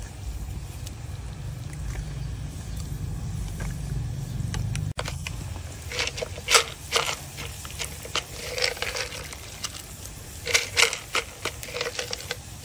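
A small plastic spoon scooping dried shrimp from a plastic jar and tapping them into a pot of water: a run of short, sharp scrapes and clicks from about six seconds in. Under it, a steady low rumble fills the first five seconds.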